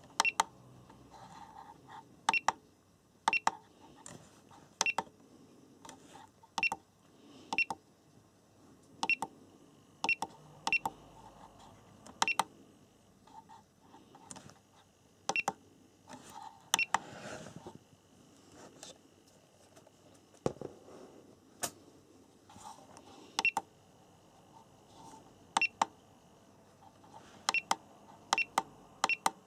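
SkyRC T100 balance charger's button-press beeps: a short electronic beep with a click each time a menu button is pressed. There are about two dozen presses at an uneven pace of roughly one a second, some in quick pairs.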